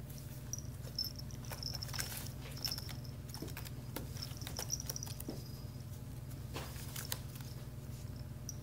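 Kitten scrabbling and rolling in a woven basket: scattered scratches and rustles of claws and paws on the wicker, over a steady low hum, with short faint high-pitched tones coming and going.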